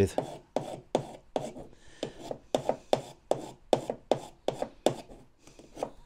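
Hand file rasping back and forth across the metal teeth of a 1/6-scale Tiger I drive sprocket, in short even strokes about three a second that thin out near the end. The strokes take the edges off the sprocket teeth so they engage the track better.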